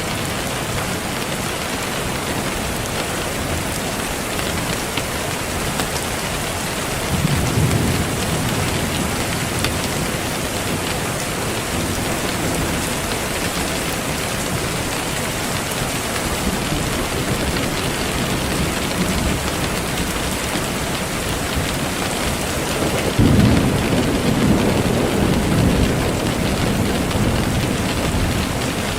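Steady heavy rain, with low rolls of thunder swelling about seven seconds in and again, louder, about twenty-three seconds in.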